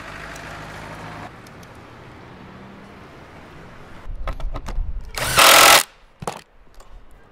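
Cordless drill with a socket bit spinning a lock nut down onto a solar-panel mounting bolt in one short burst of about half a second, a little past the middle. Before it come a few light metal clicks from handling the nut and washer.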